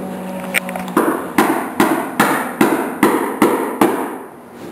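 Hammer blows tapping a wooden shim under a pool table to level it: about eight sharp, evenly spaced knocks, roughly two and a half a second, then the knocking stops near the end.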